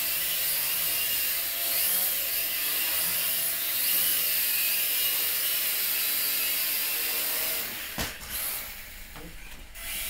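Small quadcopter's motors and propellers whining steadily as it hovers and climbs, then a single sharp knock about eight seconds in as it comes down onto the floor, and the motor noise drops.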